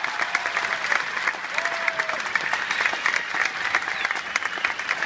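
Large seated audience applauding steadily and loudly, with a few voices calling out over the clapping.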